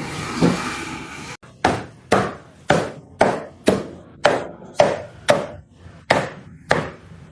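A knife or cleaver chopping through crispy roasted pork: about ten sharp, evenly paced chops, roughly two a second, after a short stretch of steady hiss.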